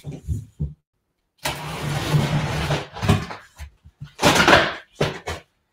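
Cardboard scraping and rustling as a large, double-boxed shipping carton is worked open, in a long stretch and then a short, louder burst with a few knocks between.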